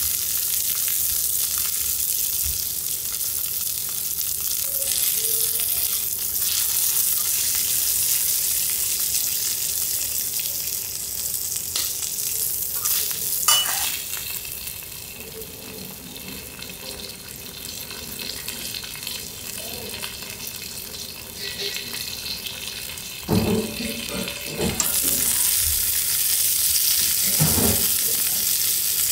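Food frying on a teppanyaki iron griddle, a steady high sizzle that grows quieter for a while in the middle and then swells again. A sharp click comes about halfway through, and a few knocks come near the end.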